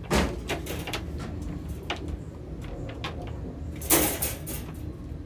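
A dog jumping into a metal wire crate, the crate rattling and clattering as the dog scrambles in and settles. A louder clatter comes about four seconds in.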